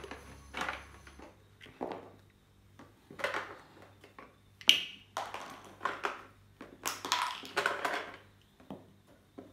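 Hard plastic toy pieces and the lid of a shape-sorter toy house knocking and rattling as they are handled: irregular clatters, with one sharp click about halfway through.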